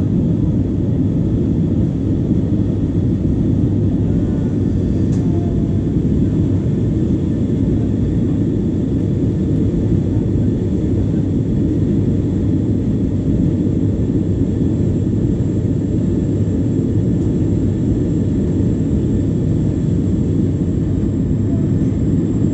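Airbus A320 cabin noise during the climb: the jet engines and the air rushing past the fuselage make a steady, deep rumble with a faint high whine over it.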